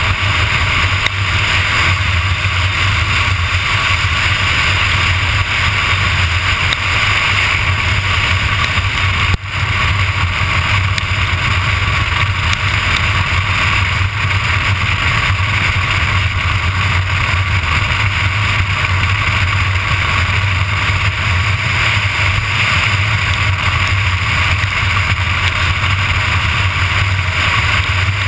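Steady roar of a street luge's urethane wheels rolling over asphalt at racing speed, mixed with wind rushing past. The sound briefly drops out about nine seconds in.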